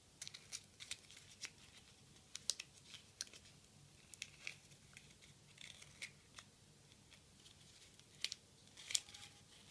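Origami paper crinkling and crackling in the fingers as the flaps of a folded paper lotus are pulled back and creased: faint, irregular small crackles, some coming in quick clusters.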